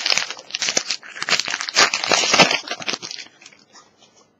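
Foil Pokémon booster-pack wrapper crinkling and tearing as it is handled, dense crackling for about three seconds, then fading to a few faint clicks.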